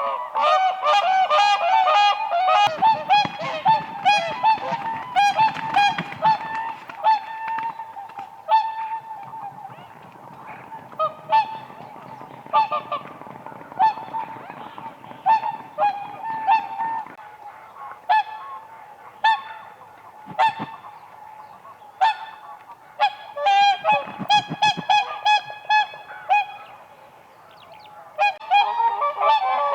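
Whooper swans calling: many short, pitched calls overlapping densely for the first several seconds, thinning out through the middle, then thickening again about three-quarters of the way through and near the end.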